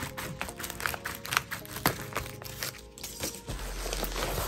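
Scissors cutting open a plastic bubble mailer, with the mailer's plastic crinkling as it is handled: a run of sharp little snips and crackles that thins out after about three seconds.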